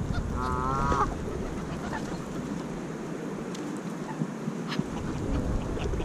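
A short wavering call from a Canada goose about half a second in, amid a flock of feeding pigeons and Canada geese, with scattered faint clicks over a steady low rumble.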